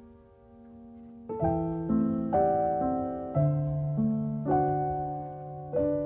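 Background piano music: slow, gentle notes and chords, each struck and left to fade, with a brief lull about a second in before the playing picks up again.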